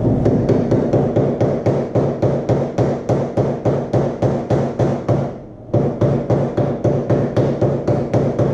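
A small rubber mallet tapping a new caster spindle bearing into the top of a Gravely ZTX42 zero-turn mower's front caster pivot housing, starting the bearing in. It strikes quickly and evenly, about four blows a second, with a brief pause a little past halfway.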